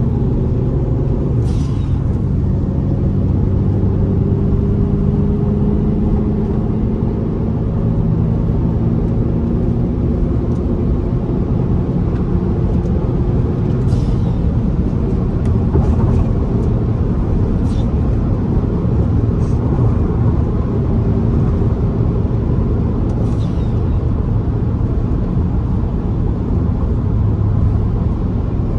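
Fiat T-Jet car cruising at steady highway speed: a constant engine hum under tyre and road noise, the engine note drifting slowly in pitch.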